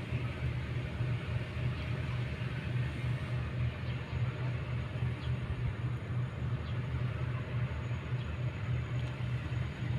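Kobelco hydraulic excavator's diesel engine running steadily, a continuous deep rumble with no distinct knocks or pauses.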